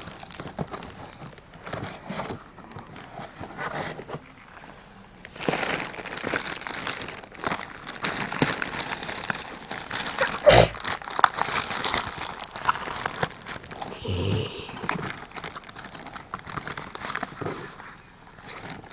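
Parcel packaging being handled and opened: a plastic courier mailer crinkling and rustling along with cardboard, in irregular crackly spells, with a single thump about ten seconds in.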